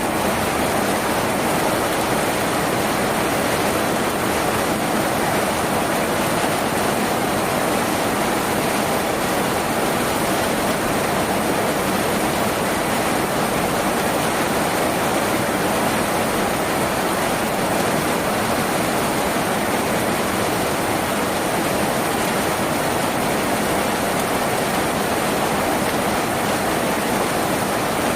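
Rain falling steadily on a tin roof, an even, unbroken rush of water noise with no pauses or single drops standing out.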